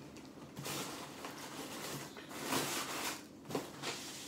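Soft rustling and scraping of a cardboard box and its cardboard dividers as a hand rummages inside and lifts out a beer can, in a few short bouts.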